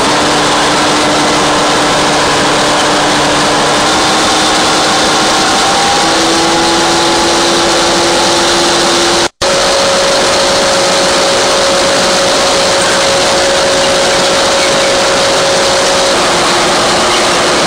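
GE 750 hp Bo-Bo diesel locomotive, built in 1951, running along the line. Its engine and running gear make a loud steady din with humming tones that shift in pitch a couple of times. The sound cuts out for an instant about nine seconds in.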